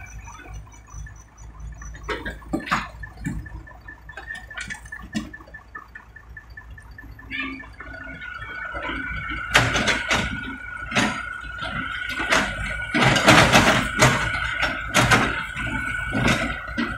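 Komatsu PC78US mini excavator's diesel engine running with a steady hydraulic whine that grows louder from about eight seconds in. Old asphalt rubble and dirt clatter and knock as they are tipped into the steel bed of a dump truck, densest in the second half.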